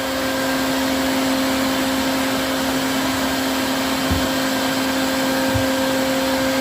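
Bee vacuum motor running steadily with a constant hum, sucking bees into a collection bucket. Two soft low thumps come near the middle and later.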